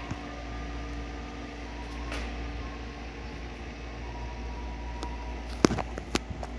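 Steady low rumble of a vehicle engine with a few faint held tones above it. Two or three sharp clicks come near the end.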